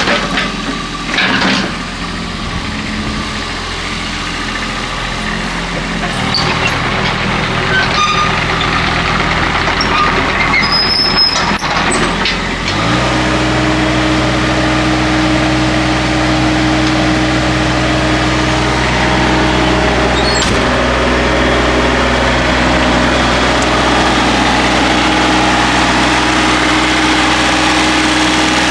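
Hitachi EX22 mini excavator's diesel engine running, with a few knocks and clanks in the first half. About thirteen seconds in the engine note changes abruptly and settles into a steady, slightly louder run.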